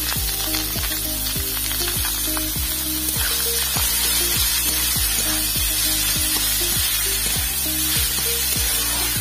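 Background music with a steady beat of about two strokes a second, over the steady hiss of banana flower sizzling as it is stir-fried in a wok.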